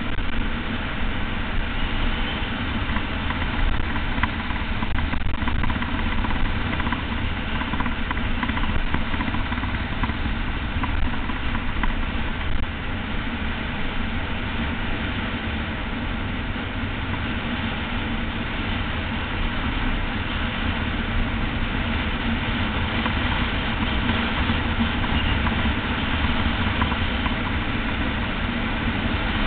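Steady wind noise buffeting the microphone of a camera on a road bike descending fast, with the rumble of the tyres on the asphalt mixed in.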